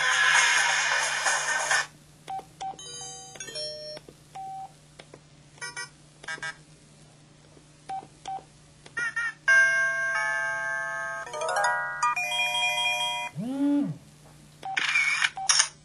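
A PH-S6500 mobile phone's built-in sound effects played one after another through its small speaker: a short noisy burst, stepped electronic beeps and blips, a held chord of tones, a quick rising run of notes, and a tone that swoops up and back down near the end.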